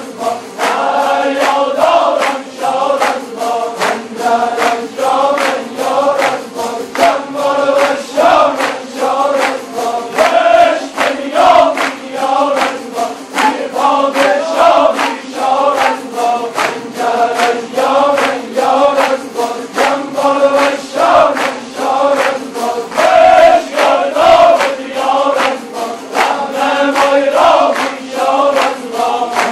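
A large ensemble of Kurdish tanburs strummed together in a steady, driving rhythm, with many men's voices chanting in unison over the strings.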